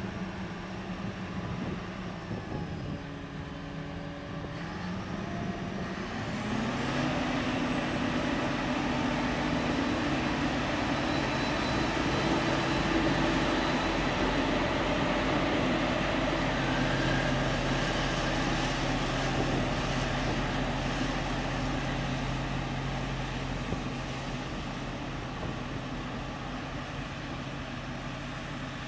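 Claas Jaguar 960 self-propelled forage harvester running under load while chopping sorghum, its engine giving a steady deep hum under the rush of the cutter and crop blower. It grows louder about six seconds in and eases off near the end.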